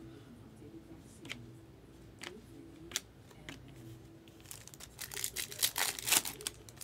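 Chrome trading cards clicking softly as they are slid one by one through the hands, then a foil card pack crinkling and tearing open over the last two seconds or so.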